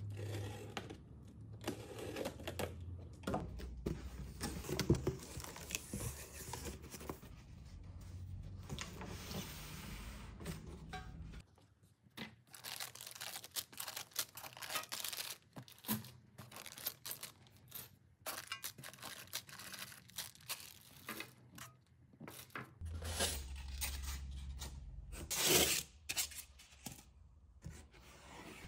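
Packing tape on a cardboard box being cut and torn open, followed by cardboard flaps, crinkling plastic bags of screws and metal post-base brackets being handled, with many irregular rustles, scrapes and light clicks. A louder tearing or rustling burst comes near the end.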